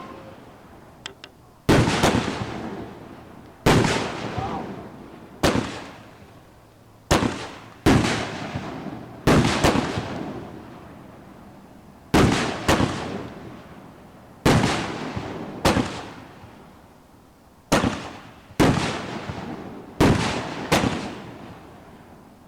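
A 12-shot consumer fireworks cake firing: a string of loud, hard-hitting breaks and reports, one every one to two seconds, each followed by a long fading rumble.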